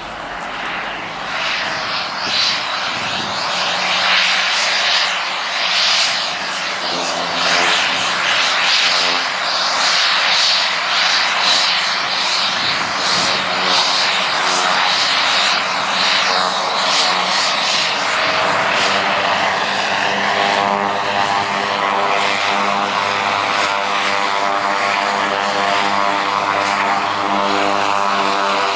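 Single-engine floatplane's engine and propeller running as the plane skims across the water on its floats. The sound grows louder over the first few seconds, then holds steady, with a hiss throughout and a steady propeller hum of several tones becoming clearer about two-thirds of the way in.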